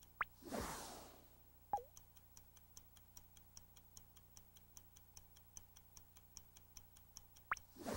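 Faint electronic ticking sound effect, about four ticks a second, running under a computer geometry animation. About half a second in comes a quick rising zip and a whoosh, then a short falling blip, and the zip and whoosh come again near the end as the figure moves to a new position.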